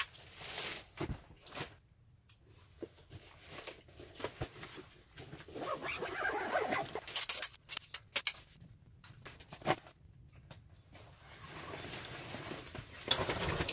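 A backpack being handled and packed: rustling fabric with scattered small knocks and clicks, busiest about halfway through.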